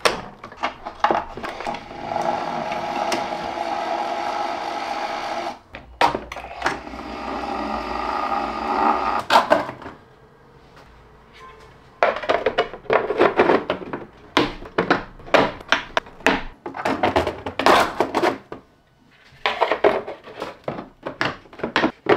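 Bambu Lab AMS Lite drawing in filament: its feeder motor whirs steadily for about four seconds, then runs again for about three and a half seconds, rising in pitch near the end. After a short lull comes a long string of sharp plastic clicks and knocks from handling the printed enclosure parts.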